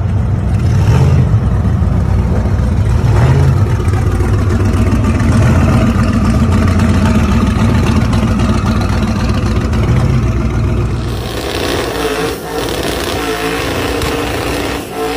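Custom 1971 GMC 1500 pickup's rear-mounted engine running loudly through open headers, its sound swelling every couple of seconds. About eleven seconds in it gives way to a noisier engine sound with tyres spinning in a burnout.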